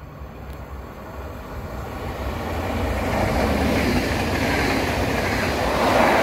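NS double-decker electric passenger train passing a station platform. The rumble and rush of its wheels on the rails swell as it comes alongside, then hold loud and steady as the carriages go by.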